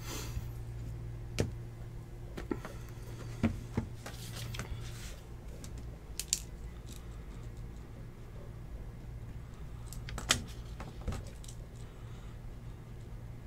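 Trading cards and plastic card holders being handled on a table: scattered light clicks and taps over a steady low hum.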